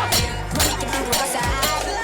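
Loud DJ-played music over a sound system, with a steady beat and heavy bass.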